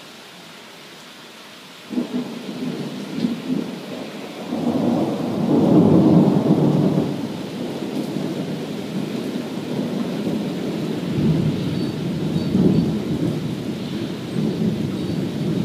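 Steady rain falling, then about two seconds in a thunderclap breaks into a long rolling rumble of thunder that swells to its loudest a few seconds later and keeps rumbling on under the rain.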